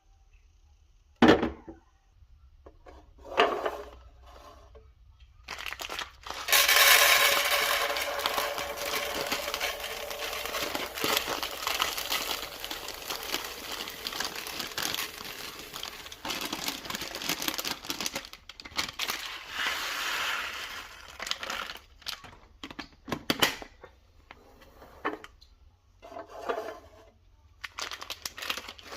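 Crinkling and rustling of material being handled, dense from about six seconds in until a few seconds before the end, with a sharp knock about a second in and scattered clicks and knocks near the end.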